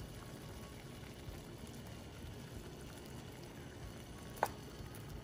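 Saucepan of water heating on an electric stove, a faint steady hiss and bubbling as it comes to the boil. One short clink about four and a half seconds in.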